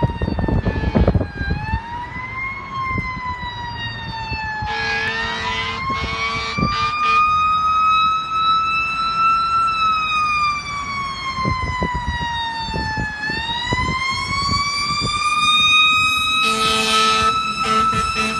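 Fire engine's Federal Q2B mechanical siren winding up and down in long, slow rises and falls. Horn blasts cut in about five seconds in, with a few short toots, and again near the end.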